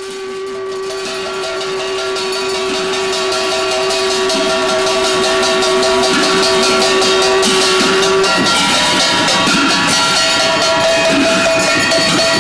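Music fading in: a long steady held note, which breaks off about eight seconds in, over dense rapid percussion.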